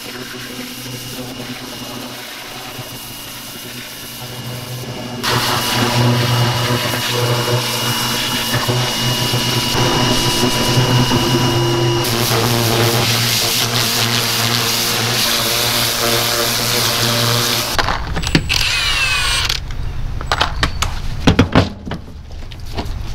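Electric pressure washer running: a steady motor hum under the hiss of the spray, louder from about five seconds in. Near the end it gives way to a run of sharp clicks and knocks.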